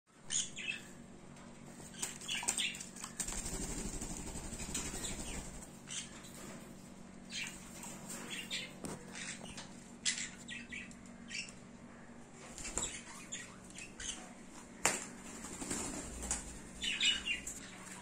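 Small green-cheeked conures bathing in a shallow dish of water: repeated short bursts of splashing and wing flapping, with a longer spell of splashing about three seconds in. A few brief chirps are mixed in.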